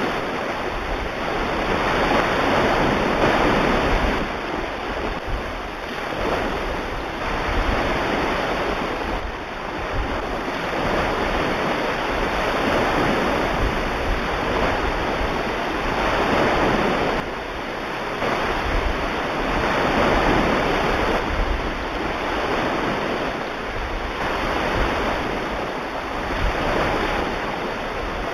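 Ocean surf in a soundtrack recording: waves rolling in and drawing back, a rushing wash that swells and eases every few seconds.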